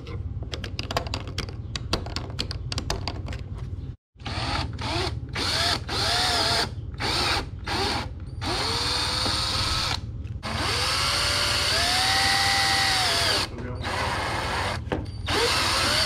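About four seconds of light scratching and clicks as hole positions are marked through a metal license plate bracket, then a handheld power drill in repeated short and long bursts, its motor whine rising each time it spins up, boring holes through the motorcycle's plastic fairing.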